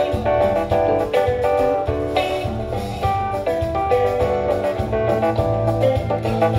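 Live band playing an instrumental passage without vocals: sustained pitched chords over a steady beat.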